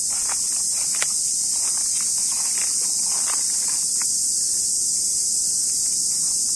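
Steady, high-pitched shrill of insects droning without a break, with scattered faint clicks and taps beneath it.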